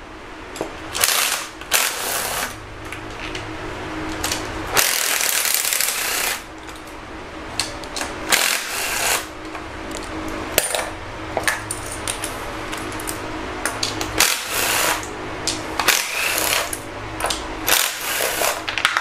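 A cordless power tool spinning out valve cover bolts in about a dozen short bursts, each from a fraction of a second to over a second long, with pauses between.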